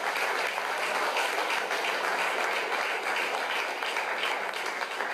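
Audience applauding at the end of a stand-up set: many hands clapping together in a steady wash.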